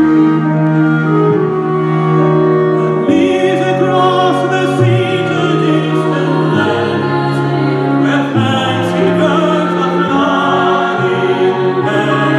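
Symphony orchestra playing sustained chords over a moving bass line, with singing voices coming in about three seconds in.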